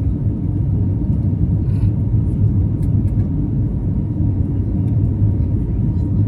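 Airliner's jet engines during takeoff: a steady, loud low rumble with a faint thin whine above it.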